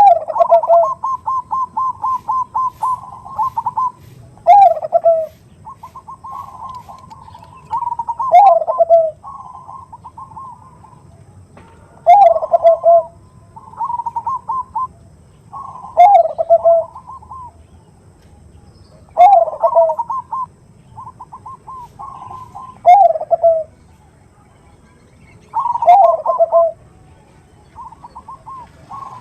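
Zebra dove (perkutut bangkok) cooing its song over and over: each phrase is a quick string of short notes followed by a loud, falling coo, repeated about every three to four seconds.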